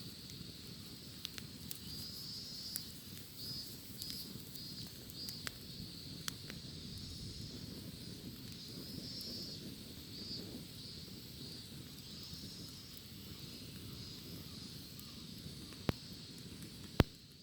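Cicadas singing in a steady high buzz that pulses in short repeated phrases. Over it a campfire crackles, with scattered sharp pops; the loudest pop comes near the end.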